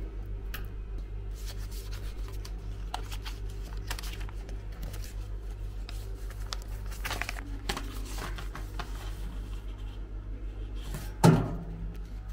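Paper envelope rustling and crinkling as it is handled and pressed shut, over a steady low hum. About a second before the end, a single loud knock as the envelope goes into a cast-metal post box.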